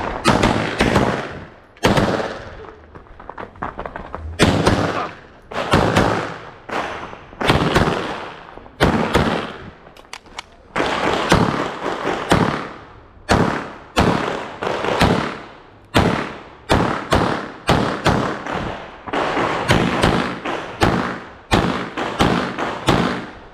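Pistol shots fired in a practical-shooting stage run: some thirty sharp shots, mostly in quick pairs, with short pauses between groups as the shooter moves and changes targets. Each shot rings briefly afterward.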